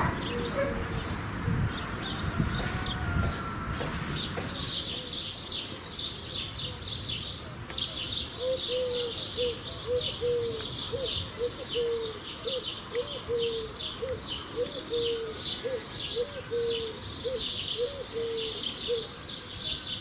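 Birdsong: a dense high chirping of small birds sets in after a few seconds of low background noise and keeps on without a break. From about eight seconds in, a low two-note cooing call repeats steadily about once a second, then stops near the end.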